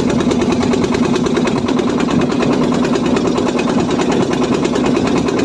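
Fishing boat's engine running steadily at constant speed, an even, fast-pulsing hum.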